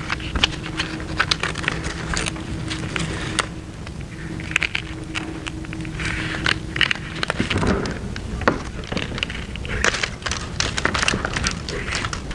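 Crackling, rustling and scattered clicks as an adhesive-backed closed-cell foam gasket strip is peeled from its backing and pressed by hand into the inner channel of a plastic septic tank riser lid.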